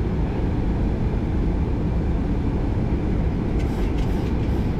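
Steady low rumble of airflow and engine noise heard inside a Boeing 737-800's flight deck during the approach.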